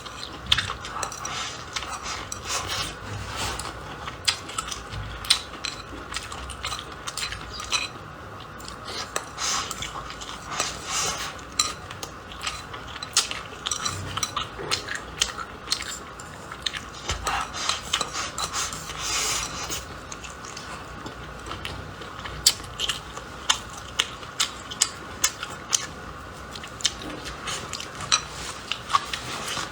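Close-miked eating: utensils clicking against a bowl and crunchy chewing, making a steady run of many sharp clicks and crunches.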